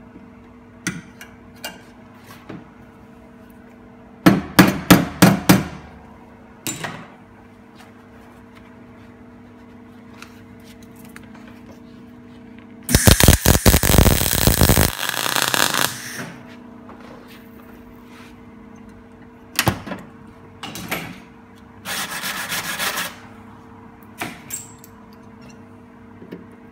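Esab MIG welder laying spot welds on sheet steel: a dense crackling burst of about two seconds in the middle, and a shorter one near the end. Earlier comes a quick run of about five sharp metal knocks, with a few scattered knocks later, over a steady low hum.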